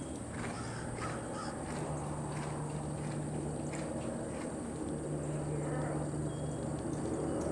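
Horse's hooves striking the sand arena footing in a steady trot, soft regular footfalls over a constant low hum. A bird calls a few times, mostly in the first couple of seconds.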